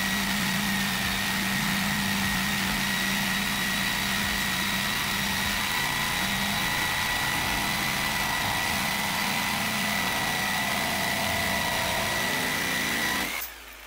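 DeWalt DW300-BR jigsaw on its lowest speed setting, its Starrett BU214 bi-metal blade sawing through a solid iron bar: a steady metal-cutting drone with a constant high tone. It stops abruptly near the end.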